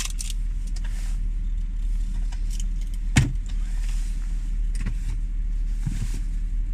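Audi A6's 2.8 V6 (CHVA) engine idling cold while it warms up: a steady low hum with faint, irregular clicks and one sharper knock about three seconds in. The owner hears this ticking only on a cold engine, lasting until it is fully warm, and does not know its cause.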